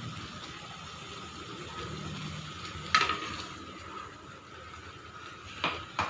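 Beans and prawn masala gravy simmering in a kadai with a faint bubbling sizzle, a sharp knock about three seconds in and two more near the end.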